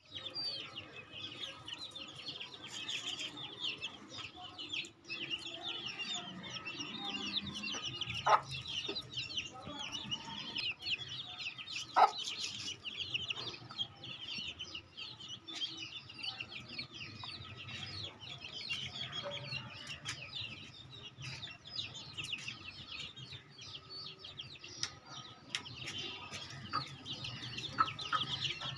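Young chicks peeping continuously in a dense, high chatter. Two sharp clicks stand out, about eight and twelve seconds in.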